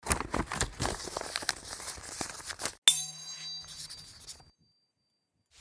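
Logo-animation sound effects: nearly three seconds of rapid crackling, then a sharp bright chime hit that rings with a low hum underneath and fades away over about a second and a half.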